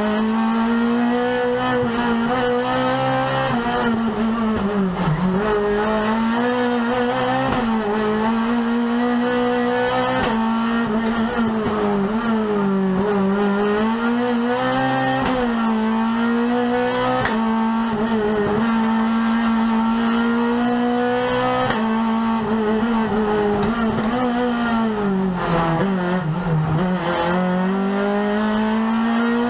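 Renault Clio Cup race car's engine heard from inside the cabin at racing speed, its pitch climbing and falling again and again through the gear changes, dropping lowest twice, about five seconds in and near the end.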